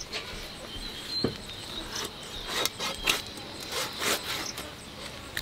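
A large knife blade cutting stingray pieces: a series of short scraping strokes, irregularly spaced, as it goes through the tough skin and cartilage.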